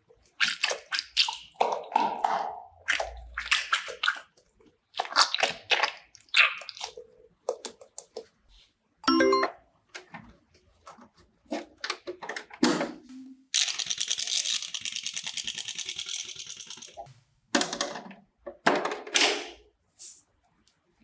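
A string of short squishing sound effects, like soft slime being pressed, each a second or less. A brief ringing ding sounds about nine seconds in, and a fast, even rattling buzz runs for about three seconds past the middle.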